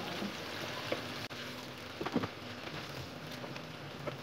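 Chicken pieces frying in hot oil in a wok, a steady sizzle, with a few clicks of a metal ladle, the loudest about two seconds in.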